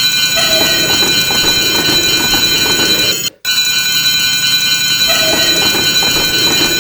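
Japanese railroad crossing warning bell ringing in a steady repeating clang, over the rumble and clatter of a train running past. The sound cuts out for an instant about three and a half seconds in, then starts over.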